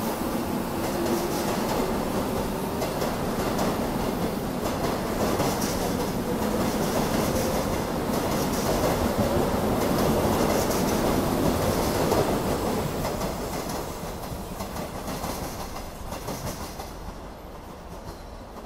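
Korail Class 311000 electric multiple unit running along the adjacent track close by, a steady rumble with regular clickety-clack of wheels over rail joints. The sound grows to its loudest past the middle, then fades over the last few seconds.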